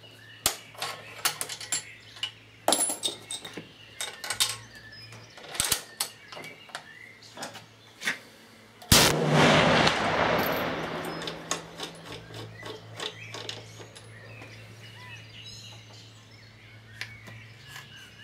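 Sharp clicks and knocks as the rifle is handled on the bench. Then, about halfway through, a single shot from a Remington 700P .338 Lapua Magnum fitted with a small three-port muzzle brake. The report is very loud and rings away over about three seconds.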